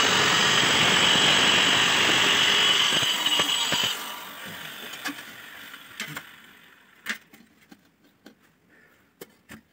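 A power tool runs loudly with a steady whine for about four seconds, then winds down and fades, followed by a few scattered light knocks and clicks as a floor tile is set onto the mortar bed.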